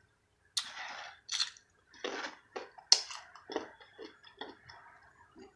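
Close-miked chewing and wet mouth sounds of someone eating, in a string of irregular crunches and smacks.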